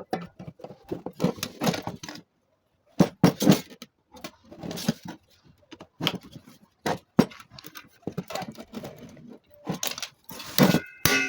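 Irregular metallic clicks, clinks and rattles of hand tools working on a car door hinge, as the wire holding the compressed hinge spring is cut away. A chime sounds just before the end.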